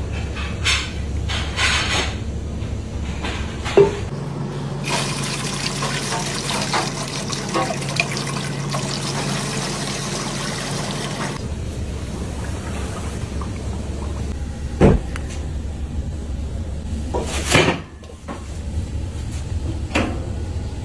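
Milk pouring in thick streams from several cartons into a large stainless-steel pot, a steady splashing rush that runs for about seven seconds and then stops abruptly. Around it are separate sharp knocks and clatter of kitchen utensils.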